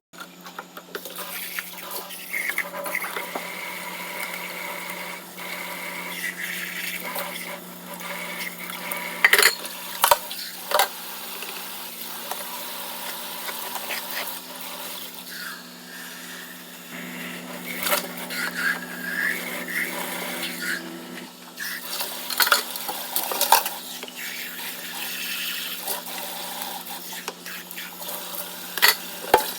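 Water running from a kitchen tap into a sink, with occasional sharp clinks and knocks of dishes being handled, over a steady low hum.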